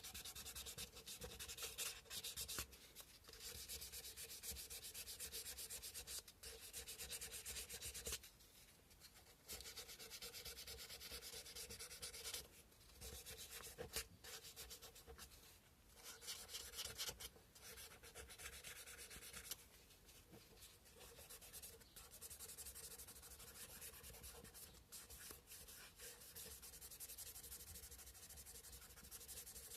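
Sandpaper rubbed by hand over a carved cow-bone fish hook, a fast back-and-forth scratching that stops briefly a few times.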